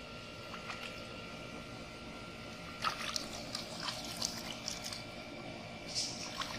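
Shallow muddy water splashing and sloshing as hands grab at a carp among weeds: a run of small splashes starting about three seconds in, with a sharper splash near the end.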